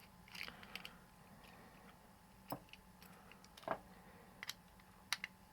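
Small plastic kitchen timer mechanism being handled and picked at: scattered light clicks and a few sharper knocks at uneven intervals, the loudest about two-thirds of the way through.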